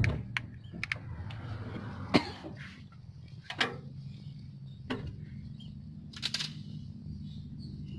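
Case CX210B excavator's diesel engine running steadily at low speed, with several short sharp knocks and clicks over it.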